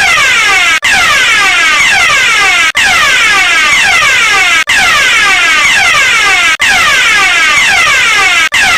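Electronic fire alarm sounding loudly in repeating cycles about two seconds long. Each cycle is a quick run of falling electronic sweeps and ends in a brief gap.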